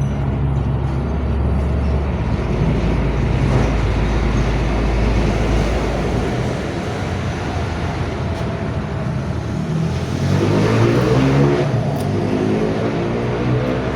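A motor vehicle's engine running steadily over road noise, then revving up with a rising pitch about ten seconds in.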